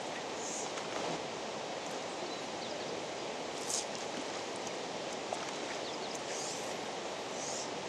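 Steady outdoor background noise with short high chirps every second or two.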